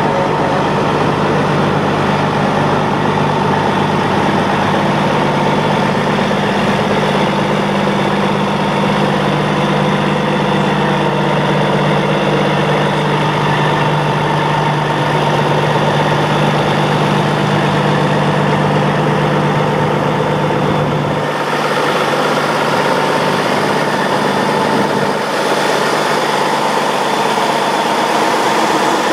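An engine idling steadily. Its low hum drops away about two-thirds of the way through, leaving a higher, hissier running sound.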